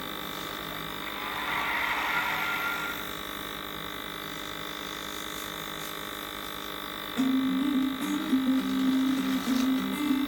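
Steady electric hum of a small motor, with a brief airy hiss about a second in. About seven seconds in, a melody of changing low notes comes in over the hum and is louder than it.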